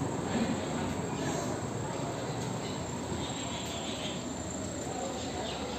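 Insects, likely crickets, chirring steadily in the trees over a low outdoor background hiss.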